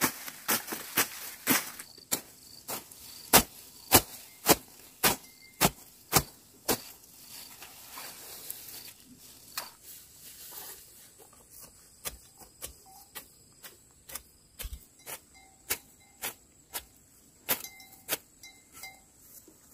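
Repeated sharp blows of a hand tool, chopping or hammering, about two a second. They pause for a few seconds about seven seconds in, then resume more softly at a similar pace.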